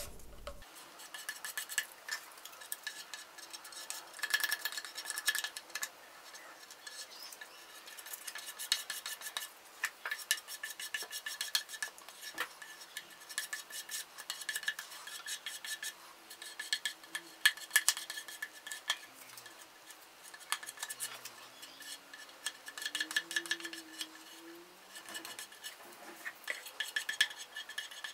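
Plastic spreader scraping paste grain filler made from joint filling compound across the bare wood of a guitar body, in repeated short strokes with small clicks as the edge catches.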